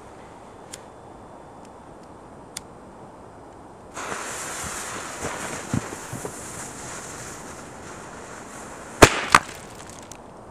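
A homemade firecracker's visco fuse lit and hissing for about five seconds, then two sharp, loud bangs less than half a second apart as the firecracker explodes inside a snowball.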